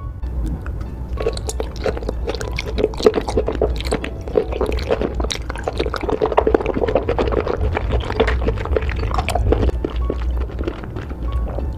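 Close-up wet, sticky squishing and many small clicks of soft food coated in thick red spicy sauce, octopus tentacles and fish cake, being handled with chopsticks.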